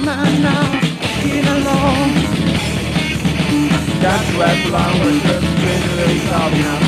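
Loud rock music from a full band playing continuously, with a wavering high melodic line over it.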